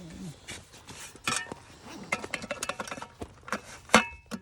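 Irregular clinks and knocks of hard gear being handled, the sharpest knock about four seconds in.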